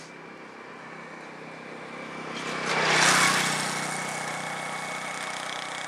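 A motor vehicle's engine running steadily, with a vehicle passing close by about three seconds in, its noise swelling and then slowly fading.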